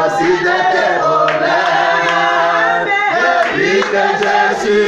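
Small group of men and women singing a worship song together without instruments, with a few hand claps.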